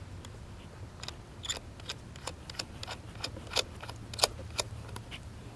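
Small irregular clicks and taps of a crimped ring terminal and wire being fitted by hand onto a car battery's terminal post, about a dozen or more light ticks spread across a few seconds.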